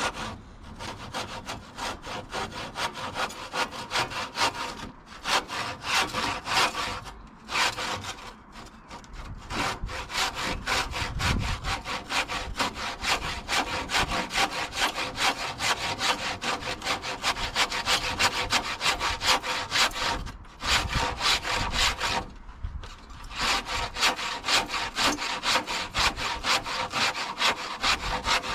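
Handsaw cutting through timber in steady back-and-forth strokes, stopping briefly a few times before carrying on.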